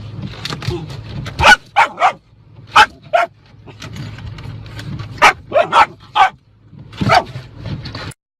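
A dog barking: about ten short, loud barks in clusters of two to four.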